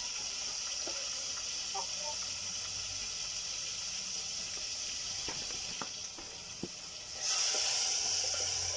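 Onions frying in oil in a pot over a wood fire, a steady sizzle that gets suddenly louder about seven seconds in as the pot is stirred with a wooden cooking stick.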